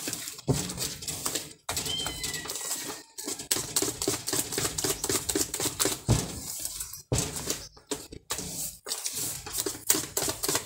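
Hand whisk beating thick cake batter in a plastic bowl: fast, rhythmic clicking and slapping strokes, with a few brief pauses.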